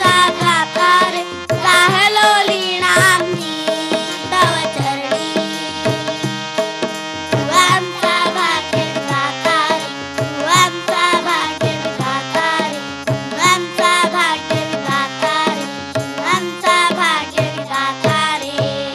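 A group of young girls singing with tabla and harmonium accompaniment. The tabla keeps a regular beat and the harmonium holds steady notes under the voices.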